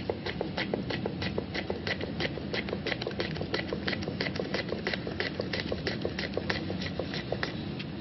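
Kitchen knife rapidly slicing green chillies on a wooden cutting board: an even run of sharp chops, about five a second, the blade tapping the wood with each stroke.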